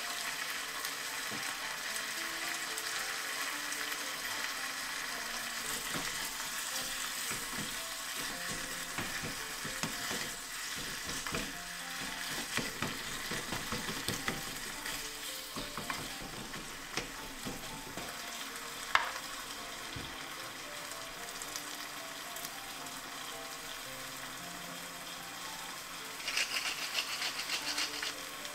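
Pork, onion and chopped tomato sizzling in a small saucepan, with a wooden spatula stirring and scraping through them in irregular strokes. Near the end a pepper mill grinds in a few short bursts.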